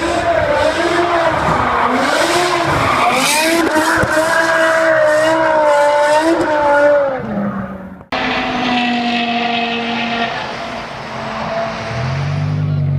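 BMW S85 V10 engine revving up and down repeatedly, its pitch rising and falling. About eight seconds in, the sound cuts abruptly to the V10 at a steadier pitch that slowly falls, and near the end a deeper low rumble comes in.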